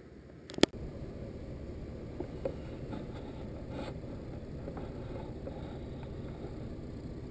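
A sharp click about half a second in. Then the steady low rumble of a vehicle's engine and running noise, heard from inside the cab.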